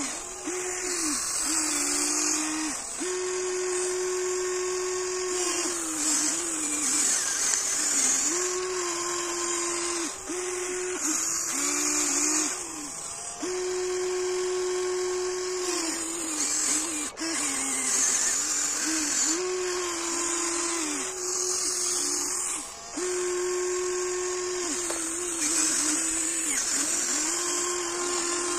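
Huina 1594 RC excavator's electric motors whining as it works its arm and bucket, digging in compacted gravel. The whine holds a steady pitch for a few seconds at a time, then dips and rises again as the load changes, over a constant high gear hiss.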